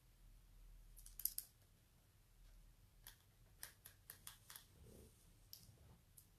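Near silence broken by faint, sharp clicks: a quick cluster about a second in, then a run of about eight spaced clicks between three and five seconds, and one or two more near the end.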